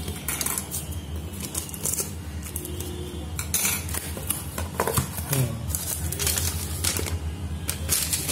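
A parcel being unpacked by hand: a cardboard sleeve and a plastic mailer rustling and crinkling, then paper being handled, with many sharp crackles. A steady low hum runs underneath.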